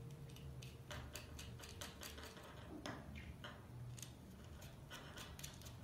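Faint, irregular small clicks and taps as metal contact points are fitted and screwed into the plastic receiver of a dog shock collar.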